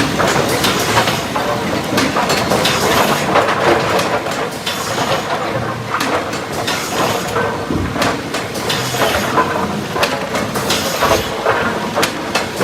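Sawmill lumber line running: boards clattering and knocking along steel chain conveyors toward the trimmer, with a constant machine din and frequent sharp knocks.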